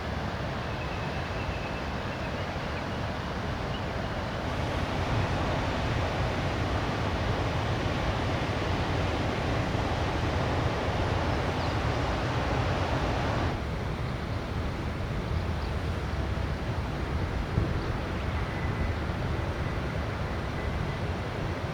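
Heavy rain, a steady rushing noise with a low rumble underneath; the sound changes abruptly about four seconds in and again past the halfway point.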